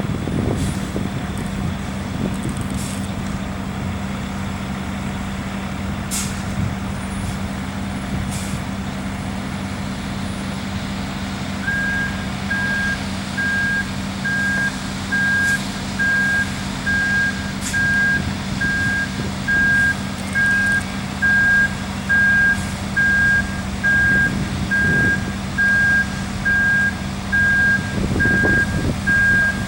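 Diesel engine of a ready-mix concrete truck running steadily, with a few short hisses of air in the first ten seconds. About twelve seconds in, its reversing alarm starts beeping about once a second as the truck backs up.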